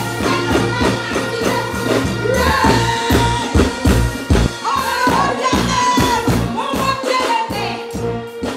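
Live band music over concert PA speakers, with a steady heavy bass beat and a woman's voice singing into a microphone.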